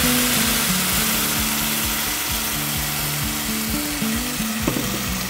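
Guajillo chile sauce sizzling as it is poured into hot oil in a pan, a steady frying hiss, with soft background music underneath.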